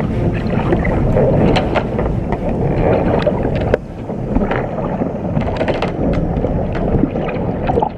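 Strong wind buffeting the microphone over water rushing and splashing against a sailing catamaran's hulls in heavy seas, with scattered sharp splashes and knocks.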